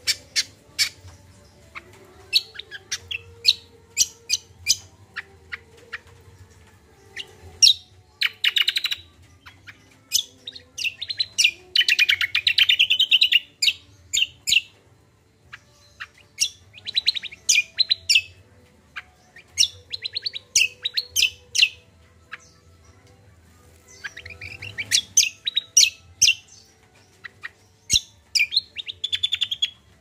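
A caged kacial songbird singing vigorously: strings of sharp repeated chirps broken up by dense, rapid trilling phrases, with short pauses between bursts.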